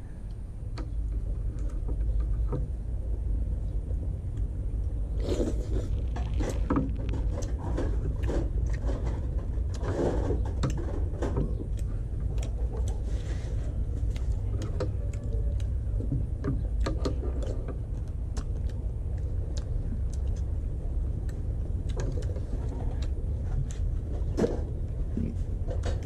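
Steady low rumble of wind buffeting the microphone, with scattered small clicks and scrapes of a metal spoon and skewer being handled at a wooden table.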